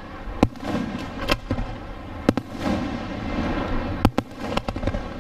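Fireworks going off: sharp bangs every second or so, several in quick succession about four seconds in, over a steady rumble and hiss from the launches and bursts.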